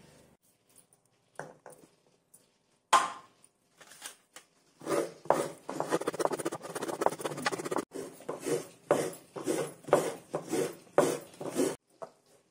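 Coconut half scraped against the serrated metal blade of a wooden coconut scraper, repeated scraping strokes at about two a second, starting about five seconds in. A single sharp knock comes about three seconds in.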